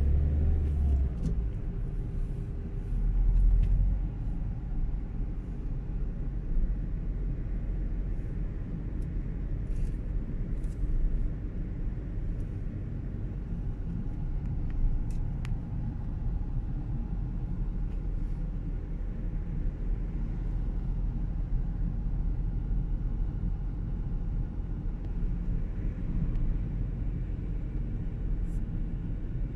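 Steady low rumble of a car driving along a road, heard inside the cabin, with a couple of brief louder swells in the first few seconds.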